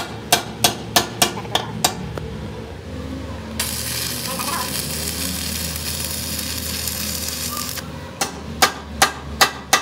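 Hammer blows on the steel truck axle housing, about three to four a second, then several seconds of a stick-welding arc crackling and hissing as a bead is laid on the axle joint, and a few more hammer blows near the end.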